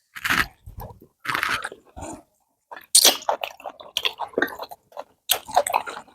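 Close-miked chewing and mouth sounds of someone eating rice fufu with okra soup, in irregular short bursts.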